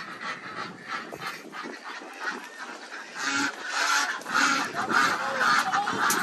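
Backyard ducks and chickens calling in their pen: repeated quacking with clucking, growing louder and busier from about three seconds in.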